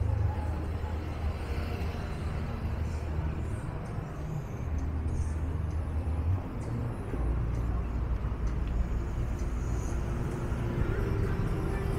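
Street traffic: vehicle engines running as cars pass, with a steady low hum that shifts about halfway through.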